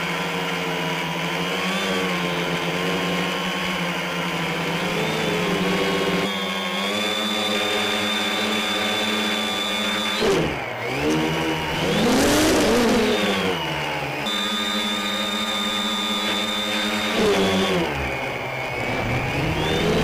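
Quadcopter's electric motors and propellers whining steadily in flight, heard from a camera on its frame, the pitch shifting with throttle. About ten seconds in the pitch drops, then surges up and back down with a loud rush of noise before settling, and near the end it dips again.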